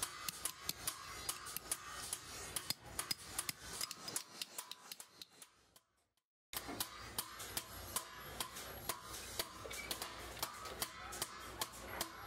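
Metalworking by hand: many sharp, irregular metallic clicks and taps of tools on metal. The sound fades out to a brief silence about six seconds in, then starts again.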